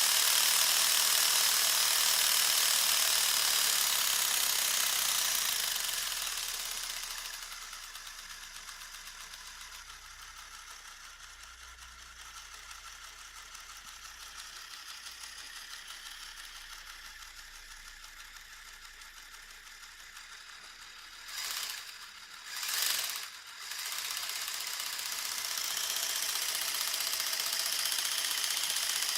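Lego truck's plastic gears and fake V8 piston engine running with a fast, high-pitched clattering rattle. It drops much quieter for a while, then comes back after two short loud bursts near the end.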